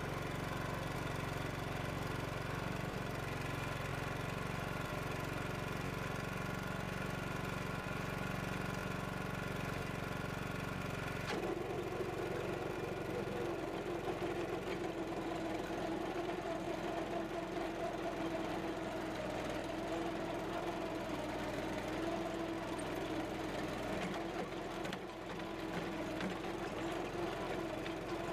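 Walk-behind chain trencher's small gasoline engine running steadily. About eleven seconds in the sound changes abruptly to a steady, higher hum as the digging chain is lowered into the soil and cuts the trench.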